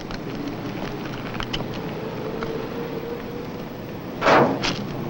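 Sheet-metal front panel of a rooftop air-vent housing being pulled open: a short, loud metallic noise about four seconds in and a lighter one just after, over a steady background rush.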